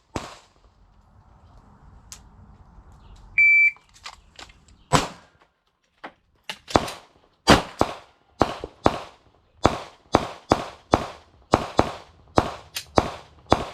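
A shot timer's start beep, one short high tone, followed by 9mm pistol shots from a Glock 17: a few at first, then a rapid string of sharp cracks at roughly two a second.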